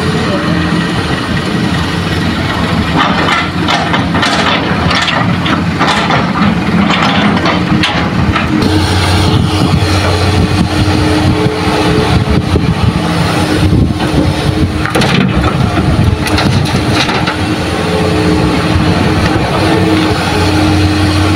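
Diesel engine of a Hitachi hydraulic excavator running steadily under load, with idling dump-truck engines, while its bucket digs and dumps soil into a dump truck bed. Irregular knocks and clatter come in bunches, about three to eight seconds in and again near the middle.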